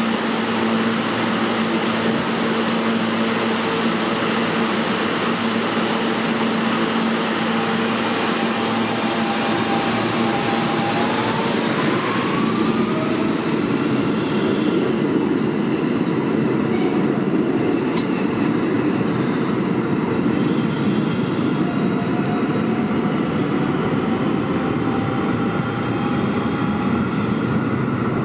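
R160B subway train standing at the platform with a steady electrical hum, then pulling out: a rising motor whine about ten seconds in, then the rumble of its cars and wheels running past. A single sharp click partway through the departure.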